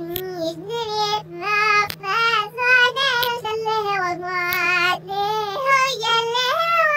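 A child singing a melody alone, a run of short held notes stepping up and down in pitch with brief breaks between them, over a faint steady hum.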